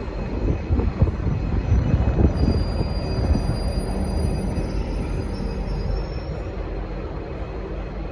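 Train rolling over the rails with a low rumble and a few knocks in the first couple of seconds. From about two seconds in to about six seconds, a thin high wheel squeal sounds over the rumble.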